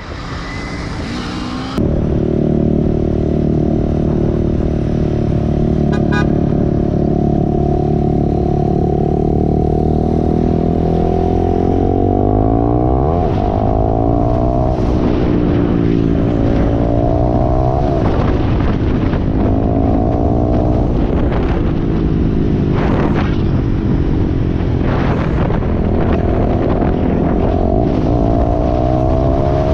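Motorcycle engine heard from the rider's position, holding a steady pitch for several seconds, then rising and falling again and again from about halfway as the rider accelerates and eases off, with brief rushes of noise.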